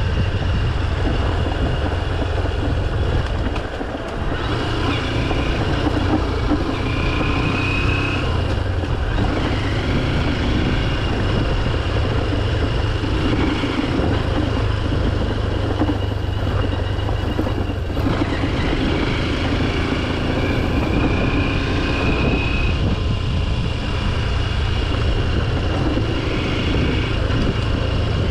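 Honda XR150L's single-cylinder four-stroke engine running steadily while the motorcycle is ridden, with a strong low rumble and a short dip about four seconds in.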